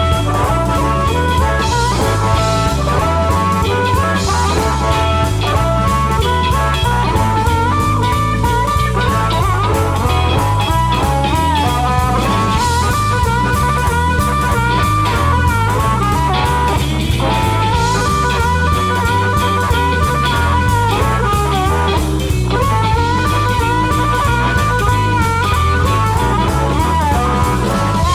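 Blues instrumental: a backing track of drum kit, bass and guitar under an amplified blues harmonica lead. The harmonica is played through a bullet mic with a crystal-style element and a slapback delay, giving bending, wavering lead phrases over a steady beat.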